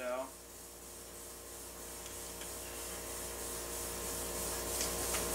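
A steady machine hum of several fixed pitches, slowly getting louder, with a few light clicks near the end.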